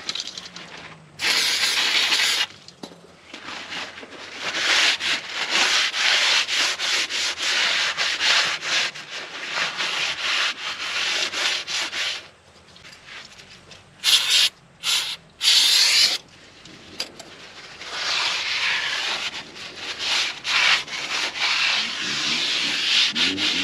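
Repeated rubbing and scrubbing strokes on a hard surface, in stretches of a few seconds with short pauses between them.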